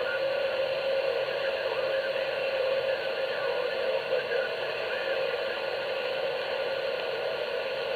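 CB radio receiver hiss and static as the skip signal fades out, steady with a few faint wavering tones.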